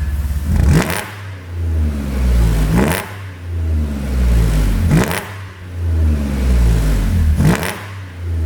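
Audi A7 50 TFSI's 3.0-litre supercharged V6 revved four times from idle, each a quick rise in pitch that falls back more slowly. A sharp pop sounds at the top of each rev as the throttle closes, from an exhaust pop-and-crackle tune.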